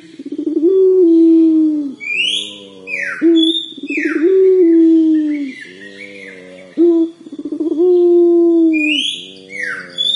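Young puter pelung (Indonesian ringneck dove) cooing about three times, each call a rapid rolling stutter that runs into one long held coo: a young bird practising the long call. High, quickly falling chirps from another bird sound between the coos.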